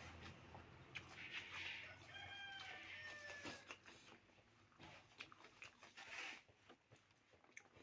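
A chicken clucking faintly in the background: a few short calls between two and three and a half seconds in, with scattered light clicks of eating.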